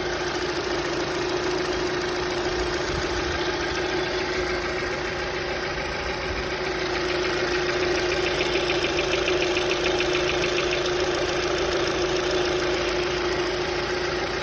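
Hyundai Accent II engine idling with the tapping of its hydraulic lash adjusters (lifters), the knock that shows they are not holding oil pressure properly; a fast ticking stands out most clearly in the middle.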